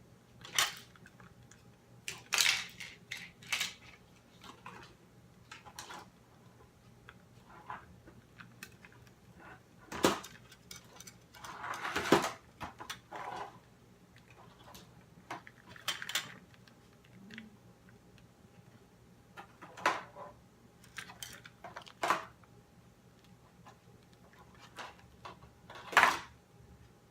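Scattered small clicks, taps and handling noise of an action figure and its lightsaber accessory being fiddled with, as the lightsaber is pushed into the figure's hand again and again without staying put.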